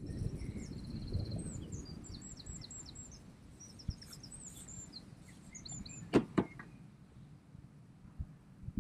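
Small birds singing in quick repeated high chirps over a low outdoor rumble. About six seconds in come two sharp knocks close together, the loudest sounds here.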